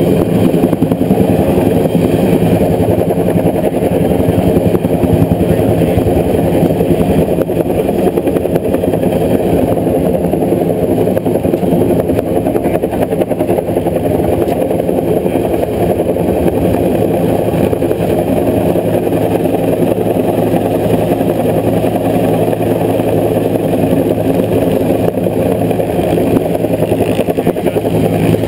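Helicopter hovering overhead with a load slung on its long line: a loud, steady drone of engine and rotor.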